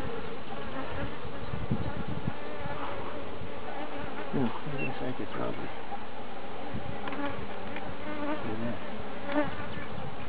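Honey bees buzzing close to the microphone: a steady hum of many bees, with a few brief louder buzzes from single bees passing near.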